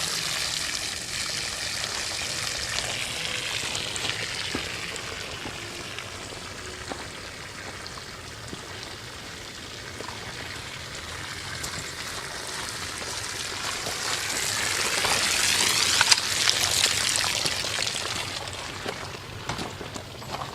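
Water pouring out of bullet holes in a shot water-filled barrel and splashing down, a steady hissing stream that swells louder past the middle and then eases off.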